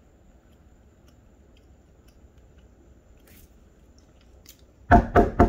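Three quick, loud knocks, about a quarter second apart, near the end, after a few faint scattered clicks.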